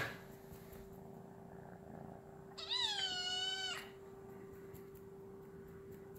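A long-haired tabby kitten meows once, one drawn-out call of about a second that rises at the start and then levels off. A brief thump sounds just at the start, and a faint steady hum runs underneath.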